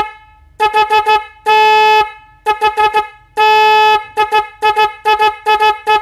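A 400 Hz 12-volt snail horn (single disc horn) sounding loud, steady toots: quick bursts of short honks alternating with longer blasts of about half a second, each a bright tone with many overtones.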